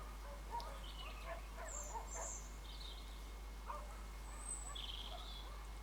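Quiet outdoor field ambience with scattered short, high bird chirps. Soft, irregular rustles come from a person crawling through grass on elbows and belly.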